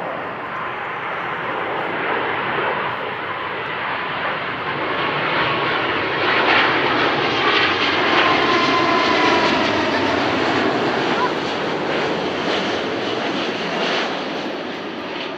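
Boeing 777-200ER twin jet engines passing by on landing, a roar that grows to a peak about halfway through and then fades, with a faint whine that drops slightly in pitch as the airliner goes past.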